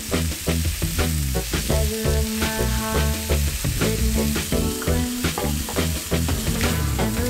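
Food sizzling and crackling in hot fat, a steady hiss with frequent small pops, under background music with a stepping bass line.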